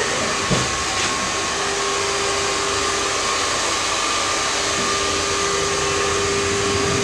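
Hair dryer running steadily: an even rush of air with a constant motor hum.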